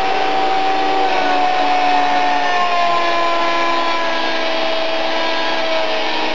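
Electric RC helicopter (Esky 005 CP2 with King shaft-drive tail) running: the whine of its 3100kv brushless motor and drivetrain with rotor noise. The whine falls slowly in pitch as the helicopter sits low at the floor.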